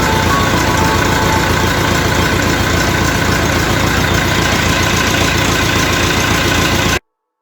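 Massey Ferguson 165 MKIII tractor's Perkins AD4.212 four-cylinder diesel engine running steadily at idle. The sound cuts off abruptly near the end.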